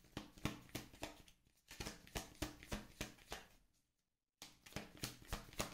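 Tarot deck shuffled by hand off-frame: a faint run of soft card clicks, about three or four a second, broken by a short pause about four seconds in.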